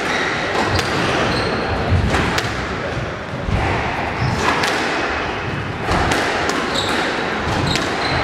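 Squash rally: the ball smacks off rackets and the walls about once a second, with short high squeaks of shoes on the wooden court floor, all echoing in the hall.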